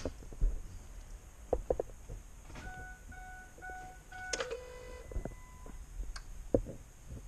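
Four short electronic beeps about half a second apart, followed by a couple of steadier beep tones at other pitches, with scattered faint clicks and knocks.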